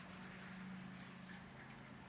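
Quiet background with a faint, steady low hum and light soft rustling as a rubber padding strip is handled.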